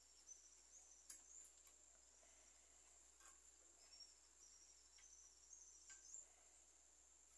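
Near silence: faint room tone with a thin steady high-pitched tone, faint wavering high chirps and a few faint light clicks.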